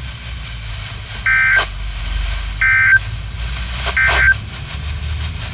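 Three short, harsh Emergency Alert System end-of-message data bursts (SAME digital tones), just over a second apart, signalling the end of the alert. A steady low hum runs beneath.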